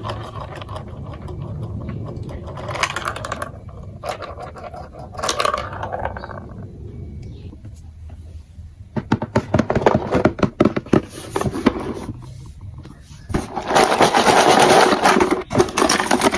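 Plastic building-block marble run clicking and rattling: scattered scuffs early, a quick run of sharp clicks around the middle, and a dense rattle near the end.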